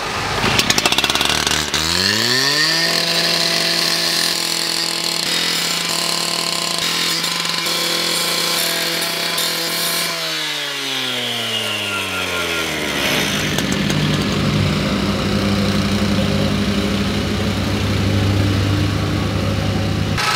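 A two-stroke petrol disc cutter (cut-off saw) revs up to full speed about two seconds in and holds a steady high scream with a blade whine for about seven seconds. It then winds down, the pitch sliding away as the blade spins to a stop. A lower, steady engine hum takes over for the rest.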